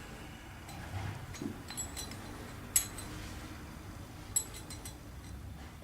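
Metal parts of a dowelling jig being handled and fitted together: light clinks and taps, with two sharper clicks about three and four and a half seconds in.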